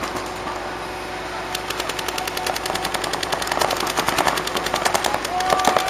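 Paintball markers firing long, rapid strings of shots, many per second, starting about a second and a half in and growing louder.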